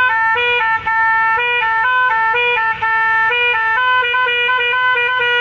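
Multi-tone bus melody horn fitted to a motorcycle, playing a fast tune of stepping notes with two brief breaks.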